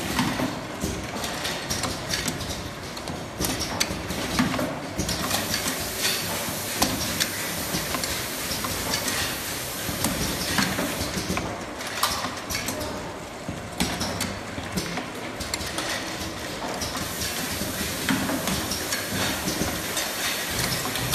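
Automatic pneumatic linear paste-filling machine running: irregular metallic clacks and clatter over a steady hiss.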